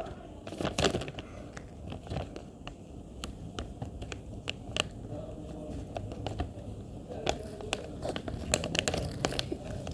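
Plastic packaging being crinkled and torn open by hand, a run of irregular sharp crackles.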